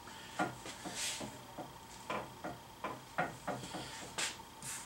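Light clicks, knocks and short scrapes of PVC pipe and fittings being handled and pushed together, about a dozen uneven taps with two brief scraping rubs.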